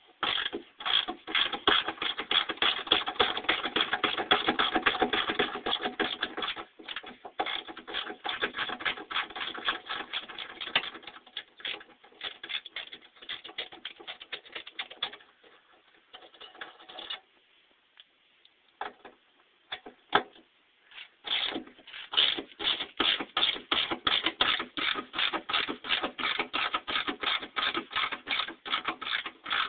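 Hand ratchet wrench clicking rapidly in runs as the bolts holding the old stock running boards are turned out, pausing for a few seconds about two-thirds of the way through.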